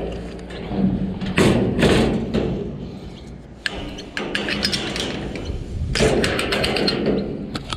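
Steel mesh cage trailer's rear gate being swung up and closed: metal clanks and rattles, with a loud clatter about a second and a half in, a sharp click, and a quick run of rattling clicks near the end.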